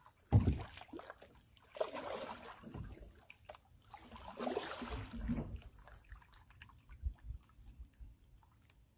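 Canoe paddle strokes in lake water: the blade splashing and water dripping and sloshing off it, a stroke every second or two. A low thump about half a second in is the loudest sound.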